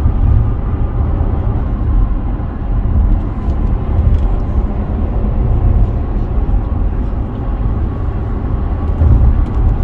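Steady low rumble of a vehicle in motion, with road noise underneath.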